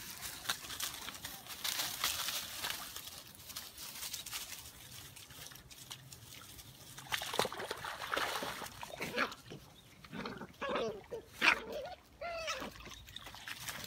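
Seven-week-old Phu Quoc dog puppies rustling through dry leaf litter and wading in shallow muddy water, with short high whimpers and yelps in the second half.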